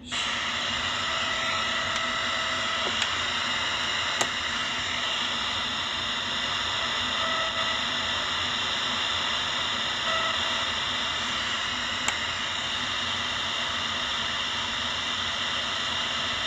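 Steady radio static hiss from the Legenda P-305T radio-cassette recorder's speaker, tuned off a station, cutting in suddenly at the start. Faint short tones come and go a few times over the hiss.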